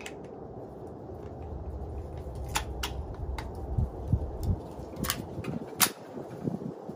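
Several sharp metallic clicks from handling a VZ61 Skorpion machine pistol, two a few tenths of a second apart about two and a half seconds in and two more around five seconds in, over a low steady rumble.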